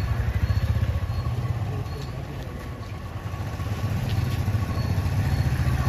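Motor vehicle idling close by: a steady low rumble.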